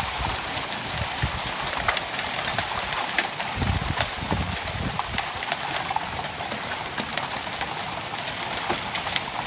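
Heavy rain pouring down steadily, with many sharp drop ticks through the hiss and a brief low rumble about four seconds in.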